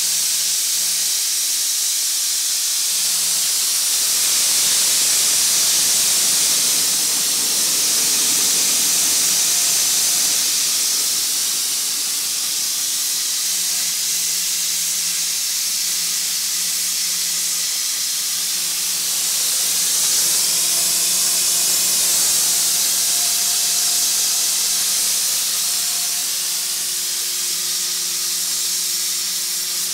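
Steam venting from a small wood-fired vertical boiler under pressure in a loud, steady hiss.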